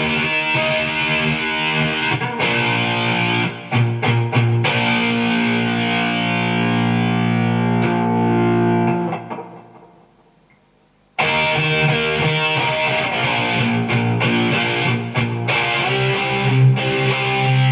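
Electric guitar played through a distortion effect, held notes with picked strokes between them. The notes fade away about nine seconds in, there is a moment of near silence, then the playing starts again suddenly.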